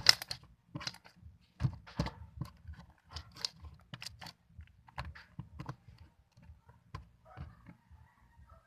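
Hands squishing and poking a homemade glue-and-activator glitter slime, making irregular wet clicks and pops, a few a second.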